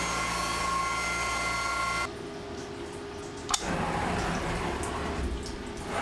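CNC mill spindle whining steadily with coolant spraying as the cutter works, cutting off abruptly about two seconds in. A sharp click follows about a second and a half later, then a steady hiss.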